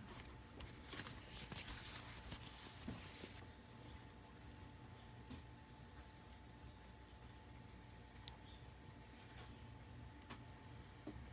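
Faint, quick, even ticking of a running mechanical pocket watch: the escapement of an 11-jewel Illinois grade 99, model 6 movement. Some light handling rustle comes in the first few seconds.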